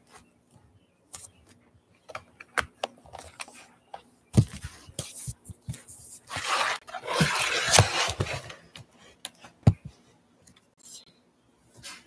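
Scattered knocks, clicks and rustling of someone moving about and handling things, with a sharp thump about four seconds in and a longer stretch of rustling and scraping about halfway through.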